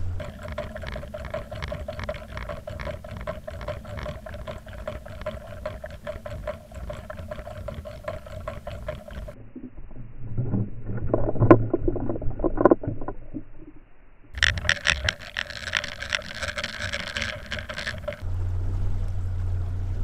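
Muffled underwater water noise from a camera trolled below the surface. It starts as a steady rushing with a faint hum, turns to deeper gurgling and bubbling, the loudest part, then to a brighter, hissier splashing. Near the end the boat's low, steady motor hum comes back.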